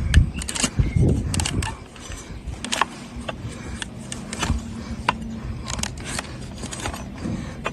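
Donkey hoof trimming: irregular sharp clicks and knocks from the farrier's tools on hard hoof horn, with heavy low thumps in the first two seconds.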